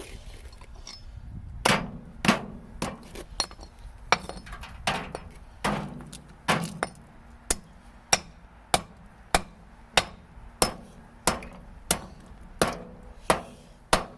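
Repeated hard blows on a microwave oven, a few irregular ones at first and then a steady beat of about one and a half strikes a second, each with a short metallic ring.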